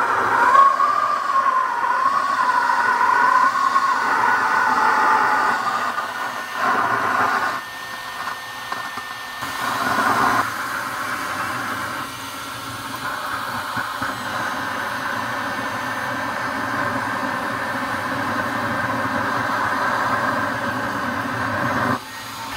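Electric heat gun blowing hot air into a pellet smoke tube to light the wood pellets: a steady rushing hiss, with a wavering whistle over the first few seconds. The level dips twice around the middle, then the hiss runs on evenly.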